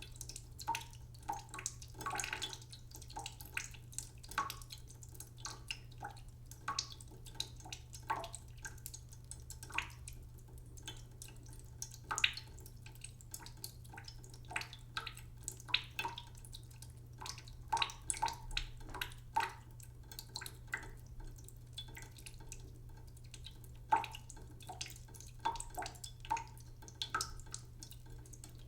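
Water from a slowly running tap dripping and trickling into a cooking pot in a sink: irregular plinking drops, several a second.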